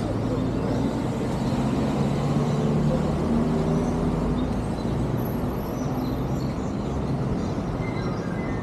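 Street traffic: a motor vehicle's engine hum over a steady low traffic rumble, strongest in the first half and fading after about five seconds.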